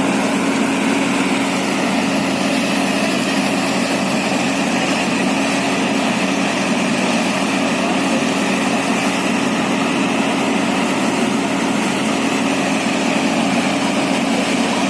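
Borewell drilling rig running steadily: a continuous machine drone with a strong low hum over a wide hiss, unchanging throughout.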